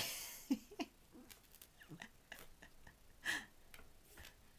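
Domestic cat playing with a small rolled-up fur toy: a short rustle at the start, then scattered soft taps and clicks with a few brief, faint sounds from the cat.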